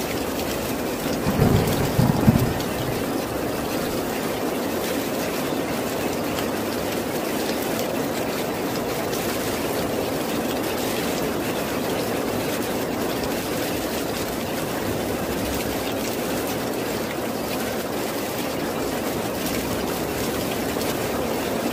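Steady rain falling, with a brief low rumble of thunder about two seconds in.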